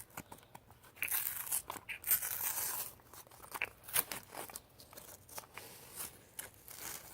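Plastic toy packaging being handled and pulled open by hand: irregular crinkling, rustling and small crackles.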